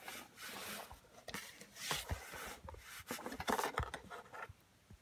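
Hands rummaging inside a cardboard box, scraping and rustling against the cardboard and handling an object inside, with a few sharp knocks. It stops near the end.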